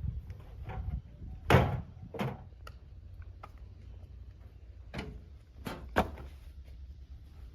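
Steady low diesel rumble from a JCB 3DX backhoe loader at work, broken by a handful of sharp metallic clanks and thuds. The loudest comes about one and a half seconds in, with another sharp one near six seconds: the bucket knocking and murum dropping while tractor trolleys are loaded.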